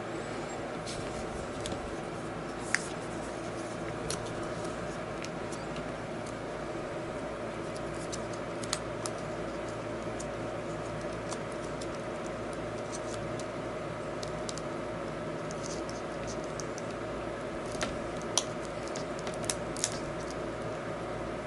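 Small plastic clicks and light scratching of fingers handling a thin laptop LCD panel and pressing its display cable connector into place, a handful of sharp ticks scattered through, with a few close together near the end, over a steady background hum.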